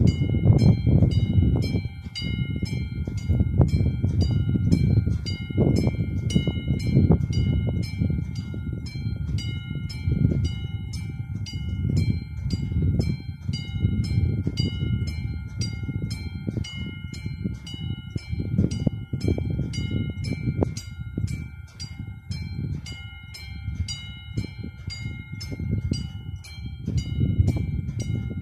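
Level-crossing warning bell on a Czech railway crossing signal ringing in an even, rapid rhythm of about two strokes a second, the alarm that a train is approaching. Wind buffets the microphone in gusts underneath.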